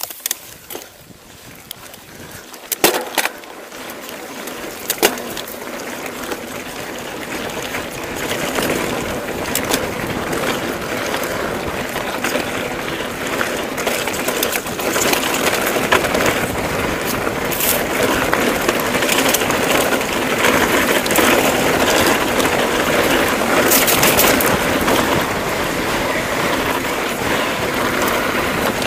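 Mountain bike rolling over a sandy dirt trail: steady tyre and rolling noise that grows louder over the first several seconds and then holds, with sharp knocks and rattles from the bike over bumps, a couple of them near the start.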